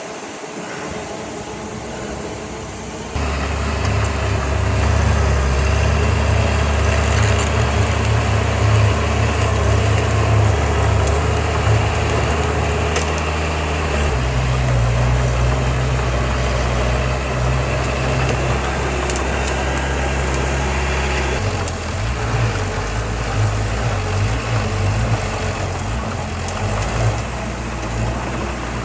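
Heavy construction machine's diesel engine running steadily. It jumps louder about three seconds in, and its engine note steps to a new steady pitch twice later on.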